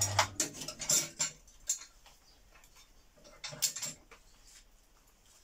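Metal clinks and knocks as the lifting frame and winch fittings on top of a washing machine are handled: a quick cluster in the first second and a half, then a few more scattered ones. A motor hum, the winch's, stops right at the start.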